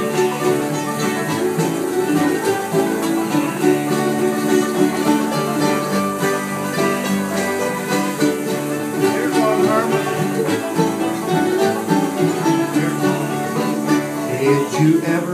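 Bluegrass jam played on acoustic instruments: five-string banjo and strummed acoustic guitar playing together, with no singing.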